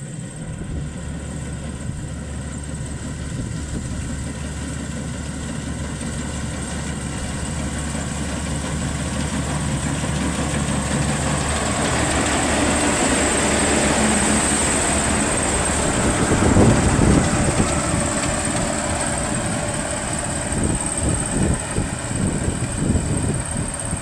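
Maxxi Bimo 102L combine harvester running steadily as it cuts and threshes rice, its diesel engine and harvesting gear growing louder as it comes close, loudest about two-thirds of the way in, then easing off as it moves away.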